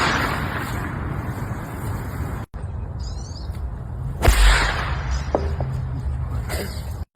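A golf club striking a ball: one sharp crack about four seconds in, over a steady low background rumble.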